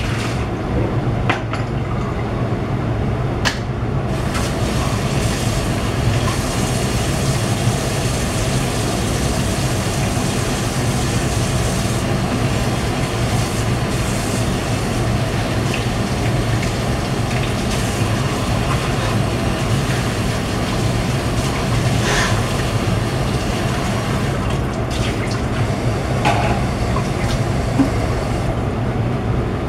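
Curry sauce boiling in a wok over a gas burner turned up high: a steady bubbling with a few louder pops.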